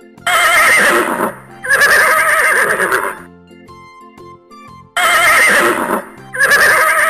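Horse neighing: two whinnies in quick succession with a quavering pitch, then the same pair again about five seconds in. Light background music plays between them.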